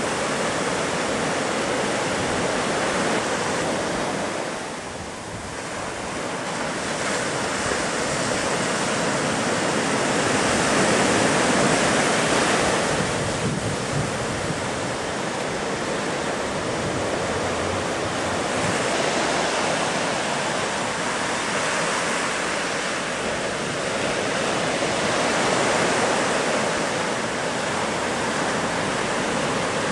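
Ocean surf: a continuous rushing wash of breaking waves. It dips briefly about five seconds in and swells louder a couple of times after that.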